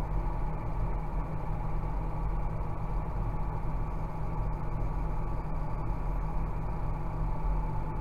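John Deere 6190R tractor's six-cylinder diesel engine running steadily, heard from inside the cab as a constant low drone with a faint higher hum.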